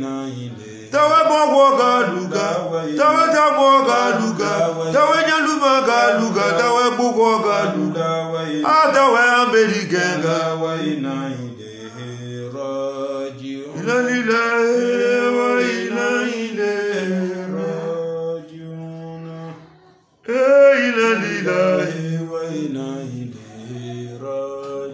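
A man chanting a song in long melodic phrases with held notes, stopping briefly about twenty seconds in before the voice comes back.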